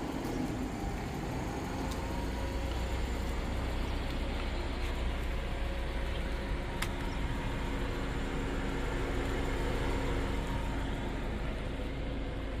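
Subaru Pleo kei car's 660 cc four-cylinder engine idling steadily: a continuous low hum.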